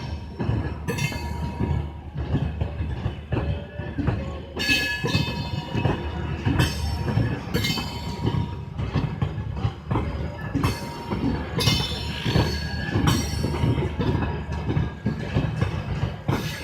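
LHB passenger coaches rolling past, their wheels screeching in repeated high squeals over the low rumble and rhythmic clatter of the wheels on the rail joints.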